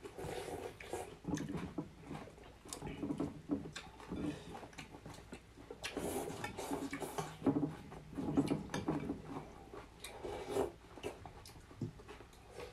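People eating rice-noodle soup: irregular slurps of noodles and broth and chewing, with chopsticks and spoons clicking against glass bowls.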